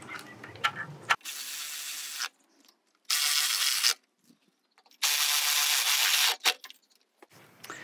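Cordless electric ratchet running in three short bursts, each about a second long, driving mounting bolts down; the first burst is quieter than the other two. A few light clicks come before and after the bursts.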